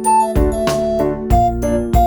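Background music: light piano or keyboard melody over a bass line with a steady beat.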